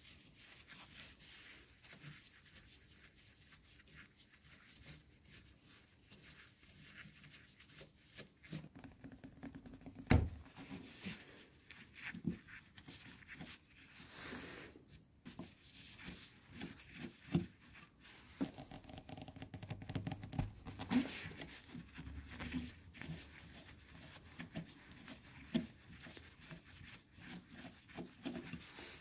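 A flat-blade screwdriver working screws loose in an old straight grinder's metal housing: faint scraping of the blade in the screw slots and small metallic clicks and taps, with one sharper click about ten seconds in.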